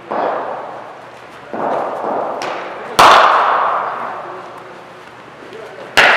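Cricket bat striking a ball, a sharp crack that rings on in a large hall, about halfway through. Softer thuds come before it, and another sharp crack comes near the end.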